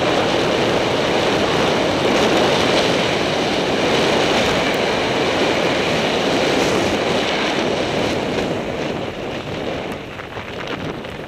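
Wind rushing over the camera microphone together with skis hissing on groomed snow during a fast downhill run: a steady, loud rush that eases a little near the end.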